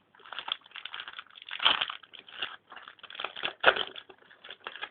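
Foil wrapper of a Yu-Gi-Oh booster pack crinkling and crackling as it is handled and opened, with two louder crackles about one and a half and three and a half seconds in.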